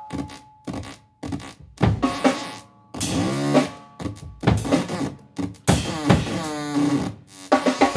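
Live noise music: loud, percussive bursts of electronic noise that start and cut off abruptly, with short silences between them. A swooping, falling pitch glide runs through it about three seconds in, and another glide comes near the end.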